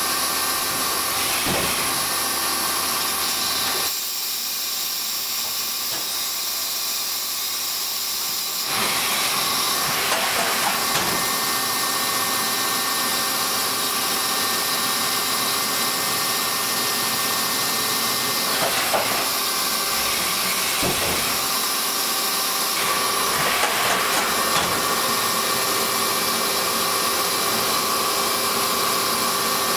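Toyoda FA630 horizontal machining center running under power, its spindle head traversing inside the enclosure: a steady hiss with a few steady high hums and scattered clicks. The noise drops for several seconds early on, then comes back.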